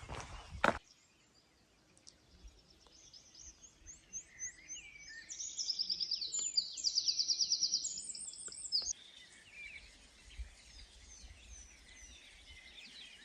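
Songbird singing: a phrase of repeated short high notes that builds into a loud, fast trill and cuts off suddenly about nine seconds in, with fainter chirps from other birds around it.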